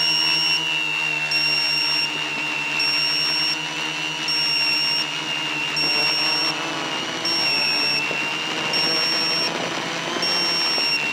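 Quadcopter's electric motors and propellers whining steadily from on board, the pitch wavering slightly. A high electronic beep repeats over it about every second and a half.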